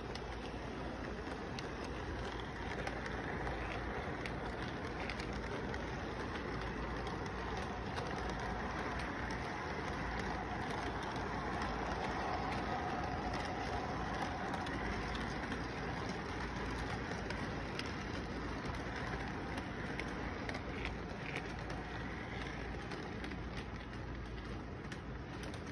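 Toy train cars rolling along the track with a steady rumble, growing louder toward the middle as the cars pass close and easing off near the end.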